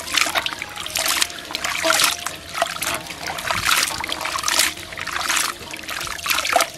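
Hands swishing, squeezing and lifting pieces of fried beef liver in a stainless steel basin of water, with repeated splashes and trickling as handfuls are raised and dropped back: rinsing straw ash off the liver.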